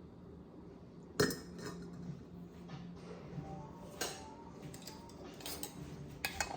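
Kitchen dishes and utensils clinking and knocking, with sharp clinks about a second in, at four seconds and near the end, and lighter clicks between.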